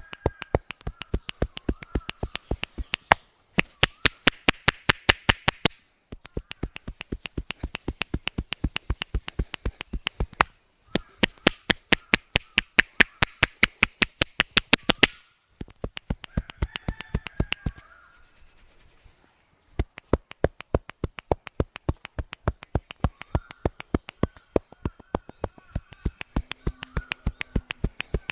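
Percussive massage by a barber's hands: quick rhythmic slaps or taps, about six to seven a second, in bursts of a few seconds with short pauses between.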